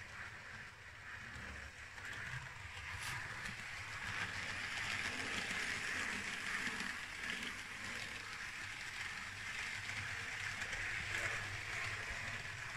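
Model diesel multiple unit running along model railway track: a steady rolling rumble of wheels on rail with a low motor hum, growing louder over the first few seconds as the train comes close.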